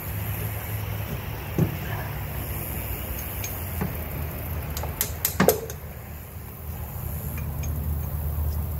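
A few sharp metal clicks and taps from hand work on the Can-Am Commander's V-twin top end, the loudest cluster about five seconds in. A steady low hum runs underneath.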